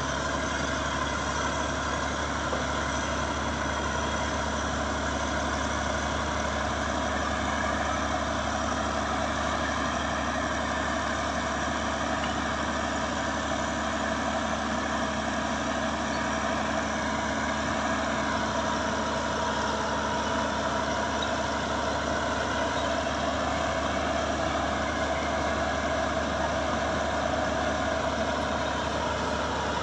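Caterpillar D6H crawler dozer's diesel engine running steadily under work, its pitch wavering slightly a little past the middle.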